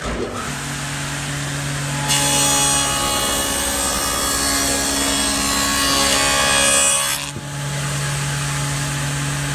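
Table saw with a stacked dado blade: the motor starts up and runs, then from about two seconds in a board is fed through, the blade cutting a wide channel along its edge with a loud sawing noise for about five seconds, before the saw runs free again.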